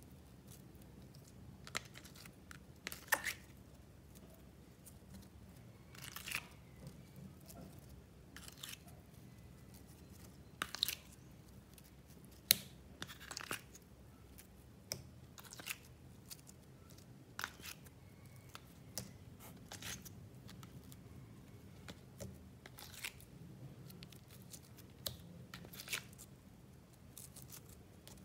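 Slime being squeezed and pressed between the fingers, giving irregular wet squishes and sharp clicking pops about a second or two apart.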